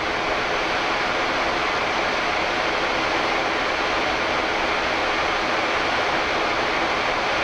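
Steady flight-deck noise of a Boeing 787-10 in flight: an even rush of airflow and engine noise.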